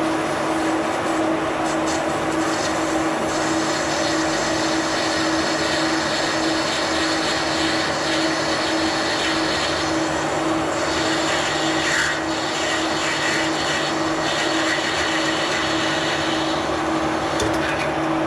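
Metal lathe running with a steady hum while a parting tool cuts through a bronze valve guide held in a collet, trimming it to length.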